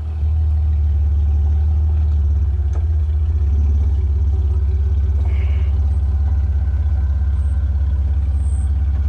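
Jeep Wrangler Rubicon's engine running at low, steady revs as it crawls down a steep, muddy slope, giving a steady low rumble. There is a faint click about three seconds in.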